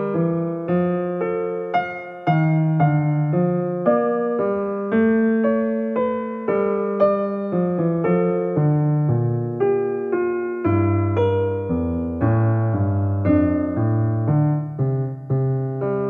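Background piano music: a gentle melody of struck notes, a new note or chord about every half second, each fading away.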